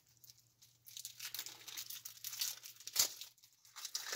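Clear plastic wrapper on a pack of game cards being torn open and peeled off by hand, crinkling, with one sharp crackle about three seconds in.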